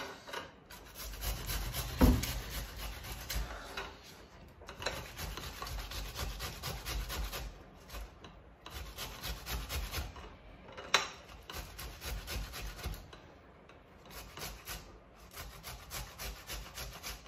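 Fresh tomatoes being grated on a conical stainless-steel grater: quick, repeated rasping strokes in bouts with short pauses between them. Two sharp knocks stand out, about two seconds in (the loudest sound) and again about eleven seconds in.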